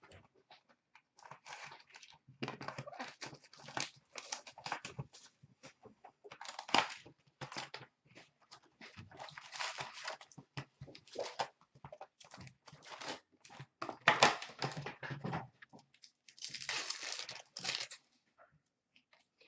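A sealed hockey card hobby box being opened by hand: cardboard and wrapping tearing, then the foil card packs rustling and crinkling as they are lifted out and stacked, in irregular bursts with small taps.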